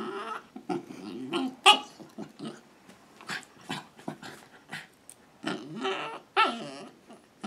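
Pembroke Welsh Corgi puppy making a run of weird vocal noises: short growly grumbles and yips, about a dozen in quick irregular succession, with longer wavering ones near the end.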